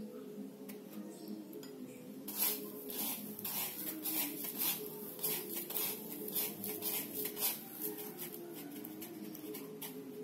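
Dry breadcrumbs crackling and rustling in a bowl as a hand presses and turns a battered tofu piece in them: a dense run of quick scratchy crackles from about two seconds in, thinning out after about eight seconds.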